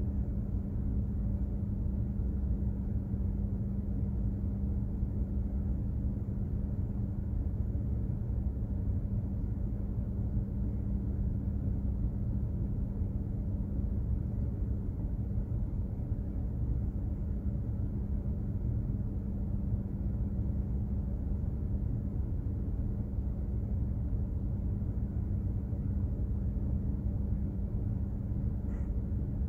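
Steady low rumble of a container ship's engines and machinery under way, with a constant hum held underneath.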